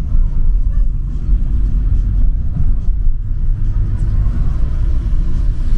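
A car driving along the road, heard as a loud, steady, deep rumble of engine and road noise.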